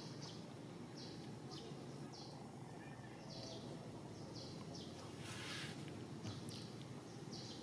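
A series of short, high chirps, about two a second and somewhat irregular, over a steady background of outdoor noise, with a brief hiss about five seconds in.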